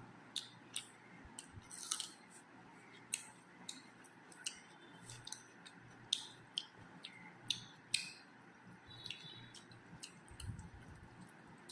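A person chewing food close to the microphone, with irregular wet mouth clicks and smacks, roughly one or two a second.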